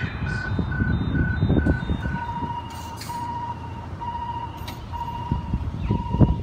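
Electronic level crossing alarms sounding through horn speakers in a steady repeating beep. About two seconds in, the higher, quicker beep of one crossing gives way to the lower, slower beep of another. A low rumble runs underneath.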